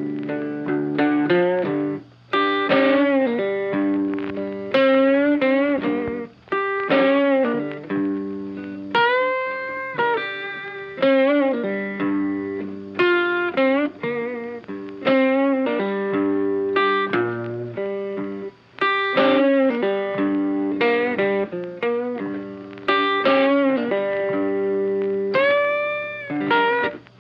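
Instrumental background music led by a guitar: a melody of plucked notes, some bent in pitch, over held chords.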